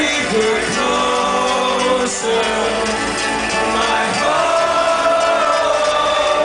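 Live trance music with long sustained synth chords and a sung vocal line, with no clear drum beat.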